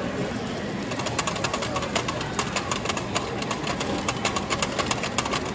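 A quick, uneven run of light clicks and taps, several a second, starting about a second in, over a steady background noise.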